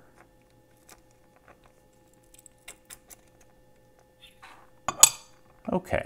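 Small metallic clicks and taps from a brass pin-in-pin lock cylinder as its plug is pushed out with a follower bar, then a short scrape and one sharp, louder metal click about five seconds in as the plug comes free.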